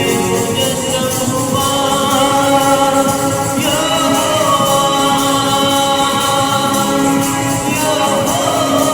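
Group of voices singing a Hindi Christian worship song in long held notes, with tambourine and instrumental accompaniment.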